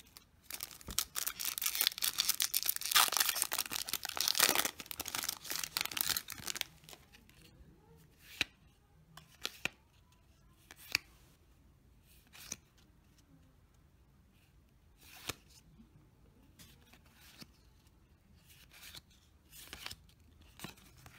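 Foil Yu-Gi-Oh booster pack being torn open, its wrapper crackling and crinkling for about six seconds. Then scattered sharp ticks as the cards inside are handled and flipped through.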